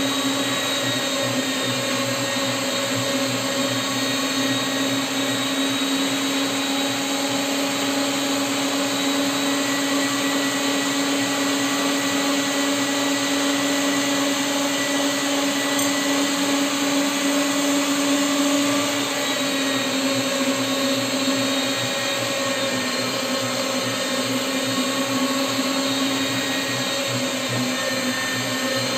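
Electric meat grinder's motor running steadily under load while extruding kibbeh dough through its mincing plate. The hum shifts slightly about two-thirds of the way through.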